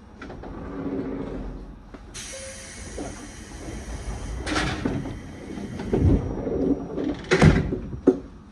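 Electric commuter train's sliding doors closing at a station: a long hiss of air, then several heavy thumps as the doors shut.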